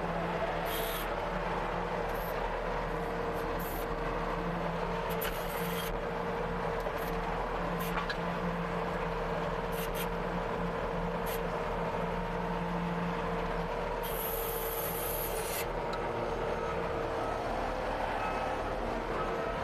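Case TR270B skid steer's engine running steadily under load as the machine moves dirt, with a steady whine, scattered sharp clicks and short hisses, one longer hiss about three-quarters of the way through.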